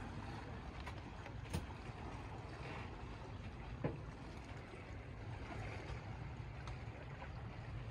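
Small boat moving across calm water: a steady low rumble with water swishing alongside, and two sharp knocks, one about a second and a half in and one about four seconds in.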